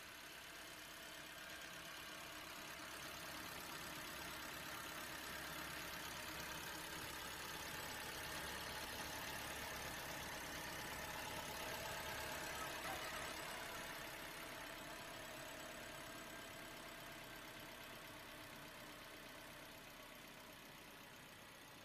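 Faint whir of a remote-control Toyota Alphard toy minivan's small electric motor and gears as it drives, swelling toward the middle and fading again.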